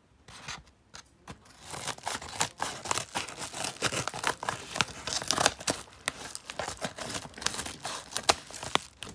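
Yellow padded bubble mailer being opened: paper crinkling, rustling and tearing, with many sharp crackles starting about two seconds in.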